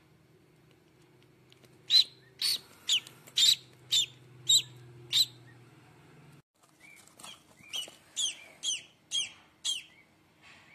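Newly hatching duckling peeping: a run of seven high, downward-sliding peeps about two a second, then after a short break a second, softer run of peeps at the same pace.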